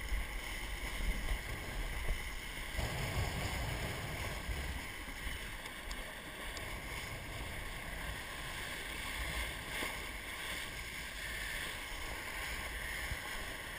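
Water rushing and splashing along the hull of a 470 sailing dinghy moving fast, with wind buffeting the microphone as a steady low rumble.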